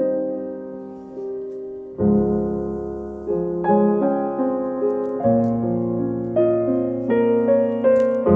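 Background piano music: gentle chords struck about once a second, each fading before the next, with a fuller chord about two seconds in.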